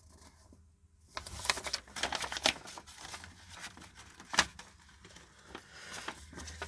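Crinkling and rustling as hands handle the kit's small parts, with scattered light clicks and one sharp tap about four and a half seconds in. It starts about a second in.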